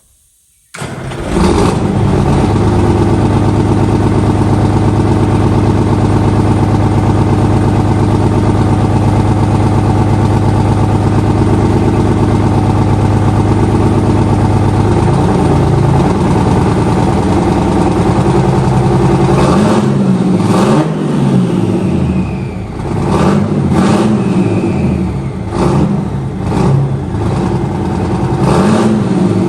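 A vehicle engine running steadily and loudly, cutting in suddenly about a second in. About halfway through it begins revving up and down repeatedly.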